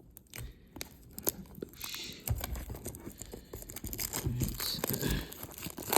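Foil Pokémon booster pack wrapper crinkling and tearing as it is opened, with many small rustles and clicks that grow busier about two seconds in.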